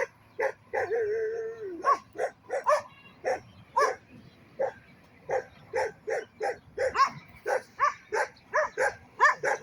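A dog barking over and over in short, high yaps, about two or three a second, with one longer drawn-out call about a second in.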